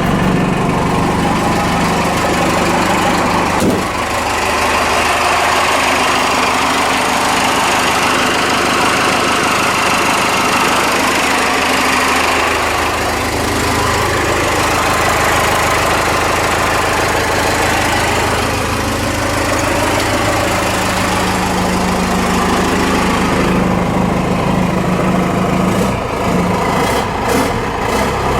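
Cummins 6BT inline-six turbodiesel, swapped into a Ford F-150, running just after its first start on the newly primed fuel system. The engine note shifts in speed a few times.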